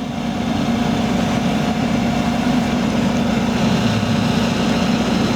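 Fendt 1050 Vario tractor's 12.4-litre six-cylinder diesel running steadily at an even pitch.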